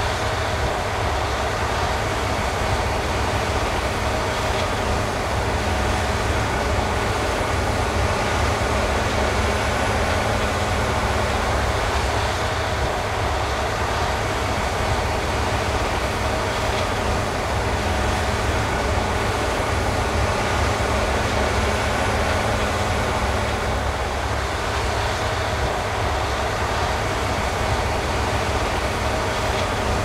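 Claas Lexion 8700 combine harvester running steadily while cutting and threshing rice: a constant machine noise with a deep rumble and a steady hum.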